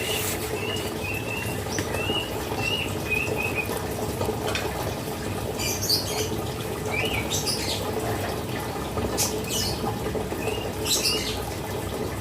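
Female cucak kinoy calling: a run of short, even chirps, about two a second, for the first few seconds, then scattered sharper, higher chirps, over a steady low hum.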